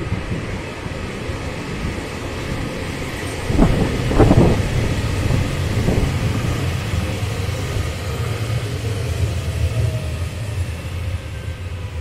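JR Hokkaido electric commuter train pulling into a station: a steady low rumble of wheels and motors, with a cluster of louder wheel knocks about four seconds in.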